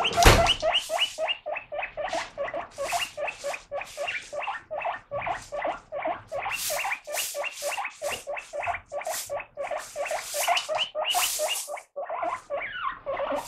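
Guinea pig wheeking ("pui pui"): a long run of loud, high squealing calls, about four a second, each gliding upward. It is the excited begging call of a guinea pig that hears lettuce being washed and is asking to be fed.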